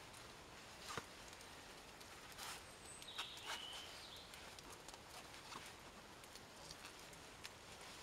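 Near silence with a few faint scattered clicks, the clearest about a second in, and a brief faint whistle-like call that steps down in pitch about three seconds in.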